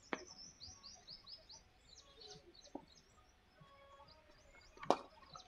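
Small birds chirping continuously in quick, repeated, falling chirps, faint, with a small click just after the start. About five seconds in comes a single sharp knock of the cricket ball, the loudest sound.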